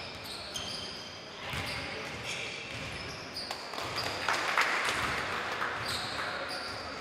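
Indoor basketball play on a wooden gym floor: a ball bouncing and short, high sneaker squeaks as players cut and stop, with players' voices. The sound grows louder for a couple of seconds about four seconds in.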